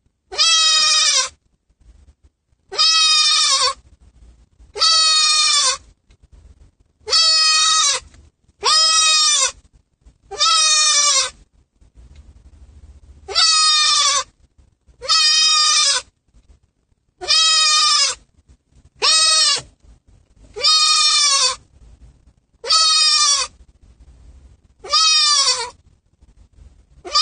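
White goat bleating over and over inside a car, about a dozen loud cries each about a second long and dropping in pitch at the end, repeated every one and a half to two seconds. The goat is crying for its owner after being left alone.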